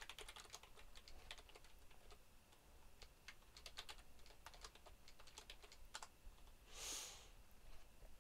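Quiet typing on a computer keyboard, the key clicks coming in quick runs with short pauses between. A brief soft hiss about seven seconds in.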